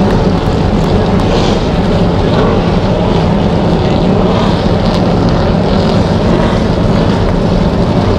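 Steady drone of stock-car engines running together, an even rumble with a low hum.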